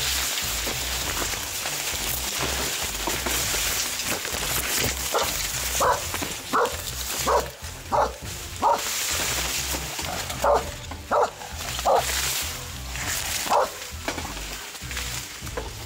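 A dog barking about ten times in two runs, the barks coming roughly every three quarters of a second. Under them is the steady rustle of maize leaves brushing past as someone pushes through a cornfield.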